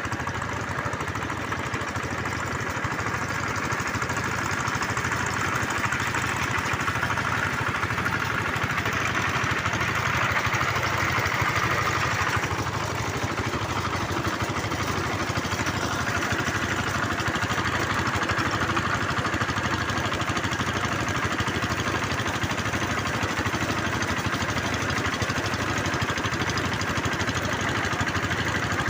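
The engine of a bore well drilling machine runs steadily. A brighter, higher sound on top of it cuts off about twelve seconds in.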